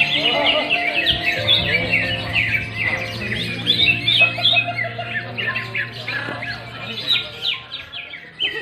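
Many caged songbirds singing at once, a dense chorus of quick chirps and whistles that overlap throughout, with music playing underneath.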